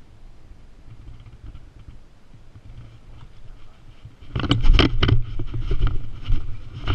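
Handling noise from a spinning rod and reel worked right beside the microphone while freeing a snagged topwater frog lure. A faint low rumble gives way, about four seconds in, to loud, irregular clicks, knocks and thumps.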